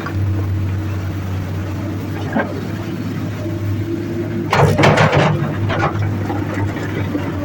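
Komatsu PC200-8 excavator's diesel engine running steadily with a low hum. A brief, loud rush of noise comes about four and a half seconds in, as the machine works in the river.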